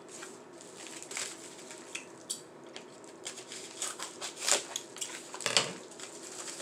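Scissors cutting open a plastic postal mailer, with plastic rustling and light clicks. Two sharper knocks come near the end, as the scissors are set down on the table.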